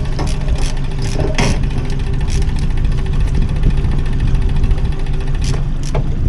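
Boat's outboard motor running at a steady low speed, a continuous low hum, with a few short clicks scattered through it.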